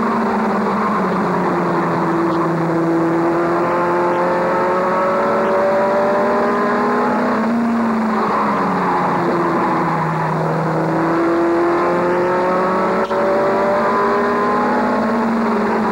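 Race pickup truck's engine at racing speed, heard from inside its cab. The engine note climbs on the straights and drops into the turns, twice.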